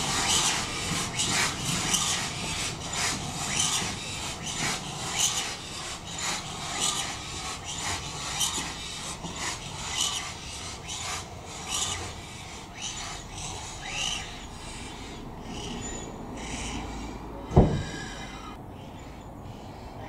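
Steam locomotive BR Standard Class 4 tank 80080 working slowly with its cylinder drain cocks open: a steady series of hissing exhaust beats about one a second that gradually fade. A single sharp thump sounds near the end.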